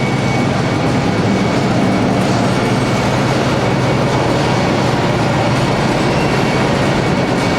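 Loud, steady machinery noise from a forge shop, with a constant low hum underneath.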